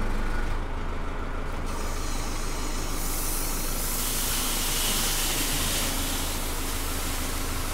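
Naked oats pouring from a telehandler bucket into a lorry's grain trailer: a rushing hiss of falling grain starts about three seconds in, over the steady low running of the Matbro telehandler's engine.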